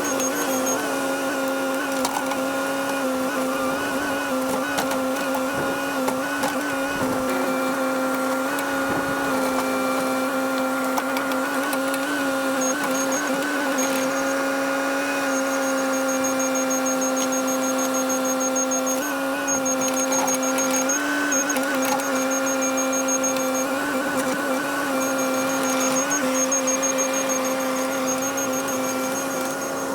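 Cat 308 excavator running steadily, its engine and hydraulics giving a constant whine made of several pitched tones, with small shifts in pitch here and there as the machine works.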